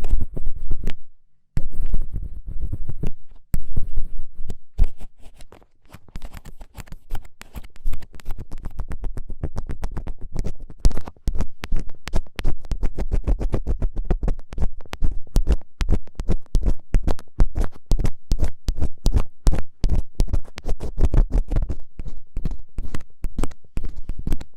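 An ear pick scraping hard and fast against the microphone in rapid scratchy strokes, with low rumbling thumps under them. It pauses briefly about a second in and again around five seconds in.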